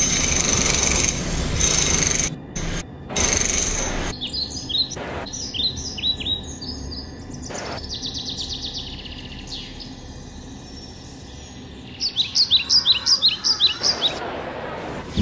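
A loud, harsh steady noise drops out twice in stutters and cuts off about four seconds in. Songbirds then sing high, quickly falling chirps and trills, with a loud, rapid run of falling chirps near the end.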